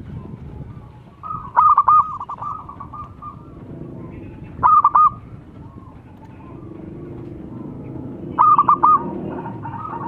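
A zebra dove (perkutut) cooing: three short phrases of quick, bouncing staccato notes, the first with a trailing run of softer notes, and a fourth starting at the end. A low background murmur grows louder in the second half.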